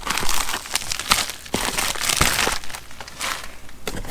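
Packaging crinkling and rustling as accessories are handled and taken out of a shipping box, with a few light knocks.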